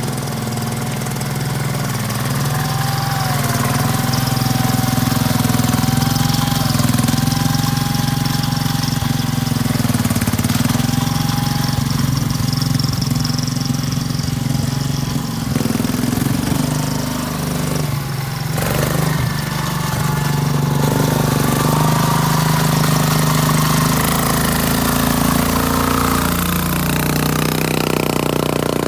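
Bonse truck's small engine running as the three-wheeled utility vehicle is driven, a steady low drone with a thin, wavering higher whine above it. The sound dips briefly about eighteen seconds in and shifts in pitch near the end.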